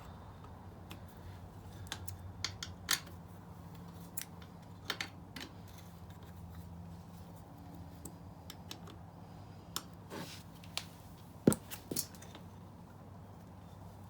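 Scattered light metallic clicks and clinks of hand tools and brake parts being handled, with two sharper knocks near the end, over a faint steady hum.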